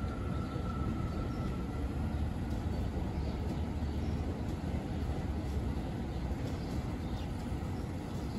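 Subway train running along a steel elevated structure and moving away: a steady low rumble, with a faint high whine that fades out about two seconds in.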